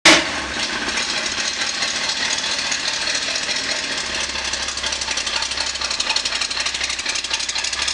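Engine of a classic Jewett idling through a custom exhaust, a steady low rumble with a rapid even pulse.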